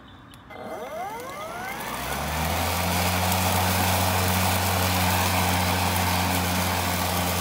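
EGO LM2135SP battery-powered lawn mower starting up: a rising whine as its motor spins up over a second or two, settling into a steady low hum.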